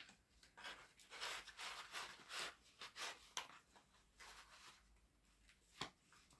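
Faint rustling and scraping as a cross-stitch kit's contents are handled and pushed back into its packaging, with one sharp click about six seconds in.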